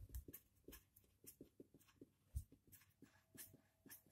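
Marker pen writing on a white board: faint, quick scratches and taps of the felt tip as each letter is stroked out. A soft low bump about halfway through.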